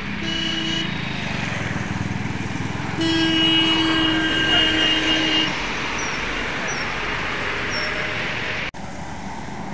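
Road traffic passing on a highway: engines running and tyres on the road. A vehicle horn gives a short toot just after the start, then a longer horn blast about three seconds in, held for a couple of seconds.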